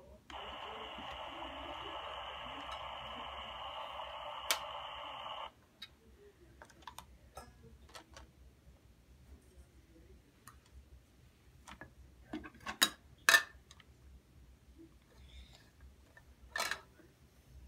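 Toy kitchen stove's electronic sound effect, set off by pressing a button on its burner: a steady hiss lasting about five seconds that cuts off abruptly. After it, scattered clicks and clinks of plastic and metal toy cookware being handled, with two sharp knocks about three-quarters of the way through the loudest sounds.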